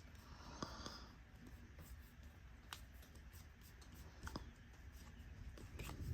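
Faint handling of trading cards and pack wrappers: a soft rustle about half a second in, then a few light clicks and taps as cards are slid and flipped.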